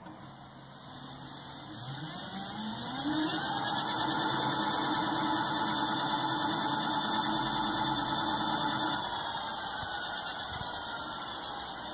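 Two e-bike hub motors spinning raised wheels with no load. A motor whine rises as they speed up about two seconds in, holds steady, then falls away after about nine seconds as the wheels slow down.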